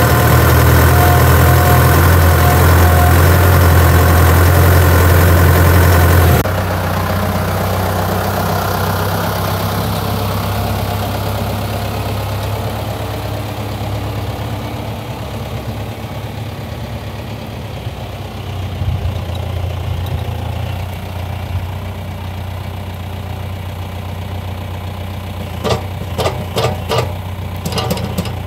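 Steyr tractor's diesel engine running, loud and close at first, then suddenly quieter and more distant about six seconds in. A quick run of knocks near the end.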